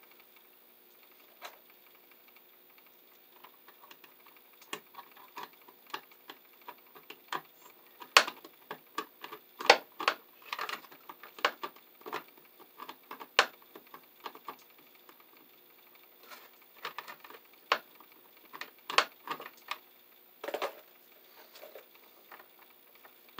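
Irregular small clicks and taps from a screwdriver turning the ground terminal screw of an electrical receptacle while stranded copper wire is worked under the screw head. The clicks are sparse at first and come thicker from about a third of the way in.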